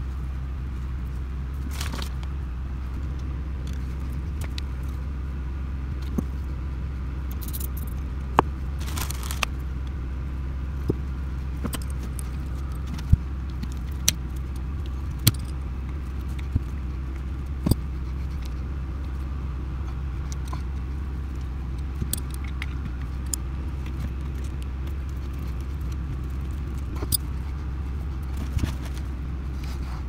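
Scattered sharp clicks and clinks of metal hand tools and small hose clamps, with pliers and a flat screwdriver working old green fuel line off a diesel heater's fuel pump. A brief scraping hiss comes about eight seconds in. A steady low rumble runs underneath.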